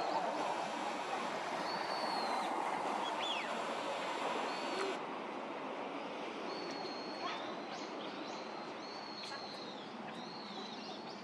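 High, thin bird calls over a steady outdoor noise: short level whistled notes and quick downward slurs, repeated every second or so and coming more often in the second half.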